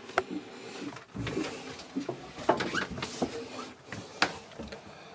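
Scattered knocks and clicks of handling and movement, with a sharp click about four seconds in as the lever handle of a wooden cabin door is worked.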